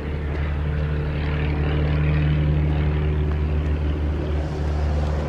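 A propeller aircraft engine running at a steady speed: a deep, even drone.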